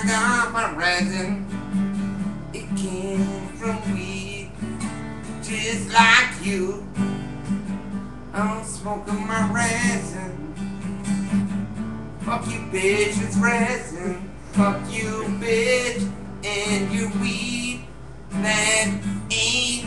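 Acoustic guitar being strummed, with a voice singing or talking over it at times.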